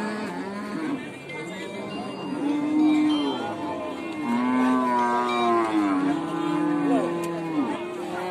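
Cattle mooing: several long, drawn-out calls, some overlapping one another, from more than one animal.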